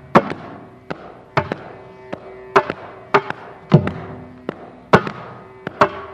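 Mridangam playing a Carnatic rhythm: sharp strokes about two to three a second, many ringing on one tuned pitch, with a deep bass stroke that bends downward about two-thirds of the way through.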